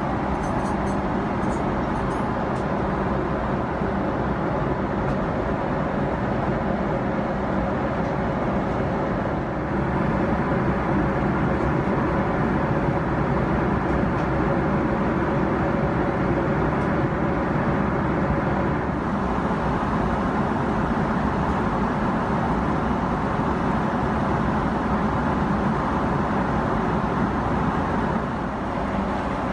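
Steady airliner cabin noise in flight inside a Boeing 777-300ER: air rushing along the fuselage over the hum of its GE90 engines. It rises slightly in level about ten seconds in.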